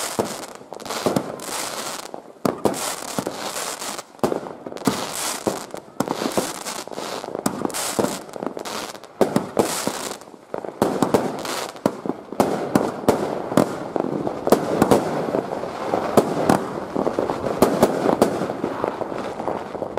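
Consumer firework batteries firing shot after shot: for about the first ten seconds, separate launches in quick succession, each with a short hiss, about two a second. After that comes a denser, continuous crackle of many sharp pops and bangs.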